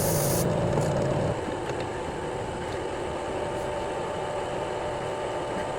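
Electric drill motor running steadily. It is louder for about the first second, then drops to an even, lower running sound.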